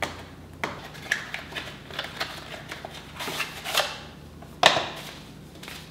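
A cardboard tea box being opened by hand and a paper pouch slid out of it: crinkling paper and cardboard with scattered clicks. The loudest rustle comes about four and a half seconds in.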